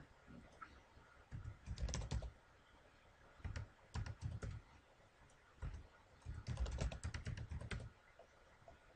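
Typing on a computer keyboard in three short bursts, each a quick run of key clicks, with quiet pauses between.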